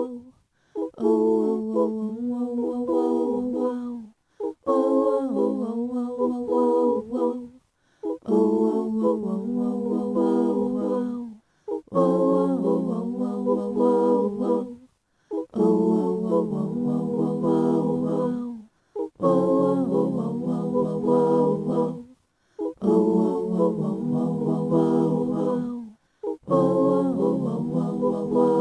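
A cappella singing, in phrases of three to four seconds with short silent breaks between them.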